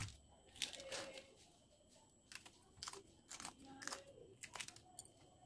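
Kitchen scissors snipping through thick green chillies, a series of faint crisp cuts about every half second with a short pause near the two-second mark.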